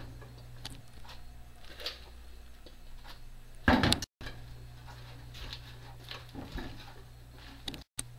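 Wooden chopsticks clicking and scraping against a stainless steel mixing bowl as chicken salad is tossed, with a louder rustling clatter a little under four seconds in, over a steady low hum. The sound cuts out briefly twice.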